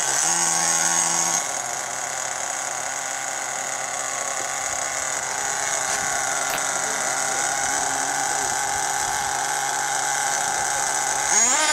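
HPI Firestorm nitro RC truck's small glow-fuel engine idling steadily, dropping to a lower, quieter idle about a second and a half in. Near the end it is blipped in a quick rev that rises in pitch.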